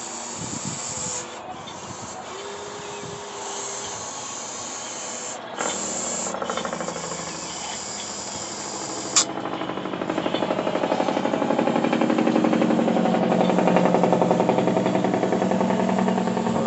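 Small RC excavator's motors running while it digs, a steady high hiss at first, then a louder, fast-pulsing whir from about nine seconds in. A single sharp click comes just before the louder stretch.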